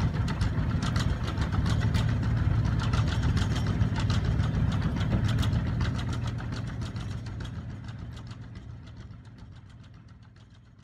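An engine idling with a steady low hum and a regular ticking knock, fading out over the last few seconds.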